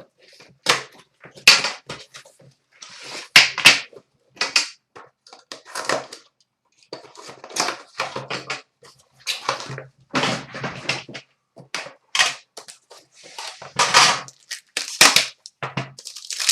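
Shrink wrap and packaging crinkling and tearing in irregular bursts as a sealed box of trading cards is opened and unpacked by hand.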